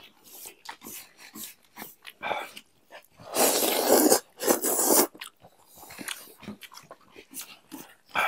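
Noodles slurped loudly in two long, rushing pulls, about three and four and a half seconds in, amid wet chewing and small clicks of chopsticks.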